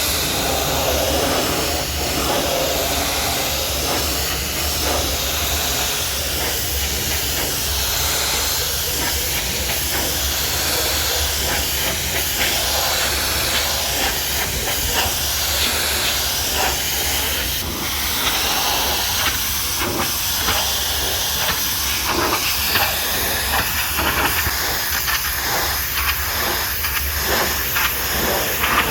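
High-pressure washer jet spraying water onto a mud-covered truck: a loud, steady hiss over a low, steady hum. In the second half the spray breaks into many short spatters as the jet sweeps across the surfaces.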